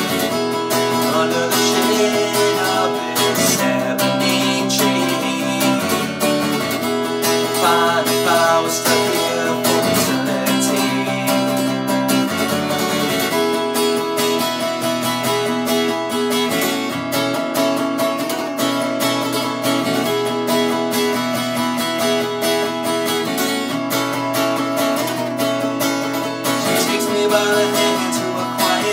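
Acoustic guitar played solo, chords strummed and picked in a steady pattern, as an instrumental passage of a folk-style song; a man's singing voice comes back in near the end.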